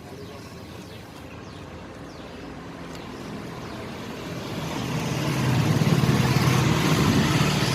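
A road vehicle going past, its engine and tyre noise swelling over several seconds, loudest near the end, then starting to fade.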